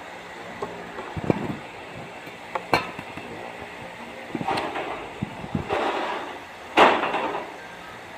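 A series of separate knocks and clatters of objects being handled, about five in all, the loudest near the end with a short scraping tail, over a steady background hum.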